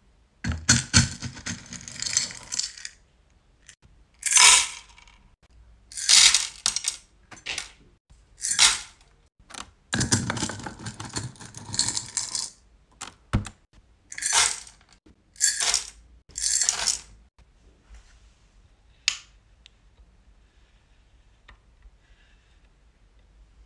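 Hard wax beads clattering against a glass tumbler and a plastic scoop as they are scooped up and poured, in about a dozen separate rattling bursts. The last part is quiet apart from a single short click.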